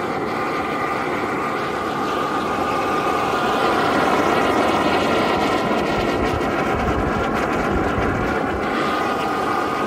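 Waste oil burner firing: a loud, steady roar of flame and forced air, with a steady whine running through it.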